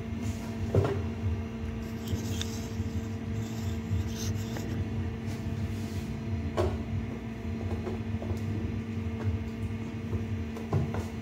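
A few short knocks from a metal cooking pot being handled, over a steady low hum.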